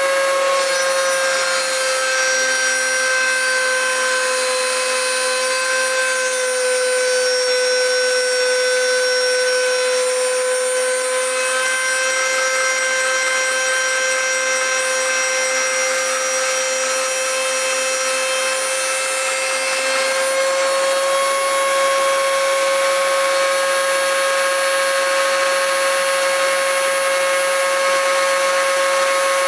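Dremel rotary tool with a cutoff wheel, moved by a CNC machine, cutting notches into a Schlage key blank: a steady high-pitched motor whine with a grinding edge. The pitch sags slightly for most of the cut and comes back up about two-thirds of the way through.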